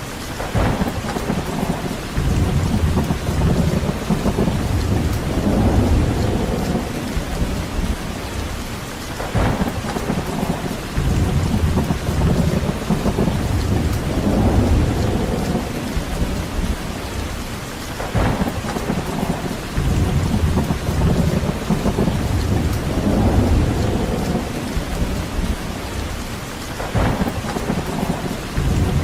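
Steady rain with deep rumbles that swell and fade about every nine seconds, each preceded by a brief sharp crack.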